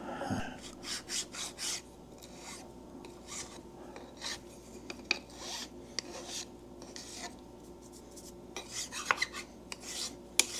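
A hand file scraping a metal part in short, irregular strokes, about one every half second to a second.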